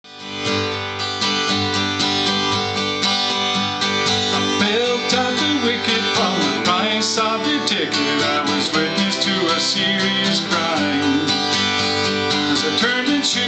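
Acoustic guitar strummed steadily, playing a song's introduction.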